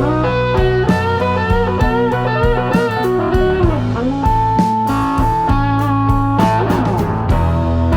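Background music: electric guitar playing bending blues-style notes over a bass line and a steady beat.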